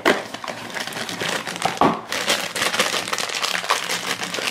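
Crinkling and rustling of a Funko Mystery Minis blind box being opened by hand and the black plastic bag inside being handled, in irregular crackles with a louder rustle a little under two seconds in.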